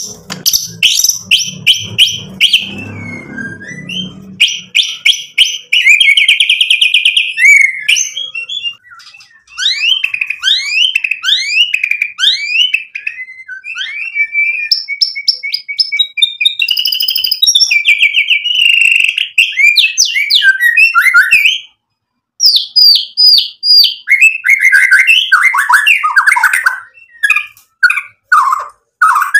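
White-rumped shama (murai batu) singing a long, varied song of rapid whistles, buzzy trills and fast down-slurred notes, packed with mimicked phrases. The song pauses briefly a little after twenty seconds in.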